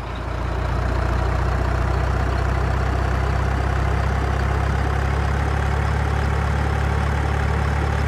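Heavy diesel truck engine running steadily, a deep even drone that fades in over the first second.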